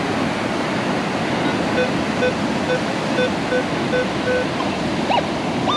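Steady rush of surf and wind, with a Minelab metal detector giving a string of short low beeps, about two a second, in the middle as its coil is swept over the sand. A brief rising chirp comes near the end.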